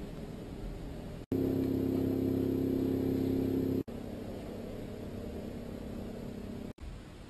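Steady low hum with hiss, cut by brief dropouts about a second in, near four seconds and near the end. Between the first two dropouts the hum is louder, with several steady tones stacked together.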